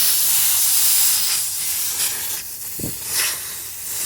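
Air hissing out of a puncture in a semi-truck tire, the hole opened up for a plug. The hiss drops and turns uneven about a second and a half in, and a short low knock comes near the end.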